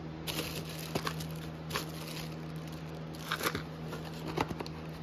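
Plastic zip-lock bags and parts crinkling and rustling in irregular bursts as a gloved hand rummages through a plastic storage bin, over a steady low hum.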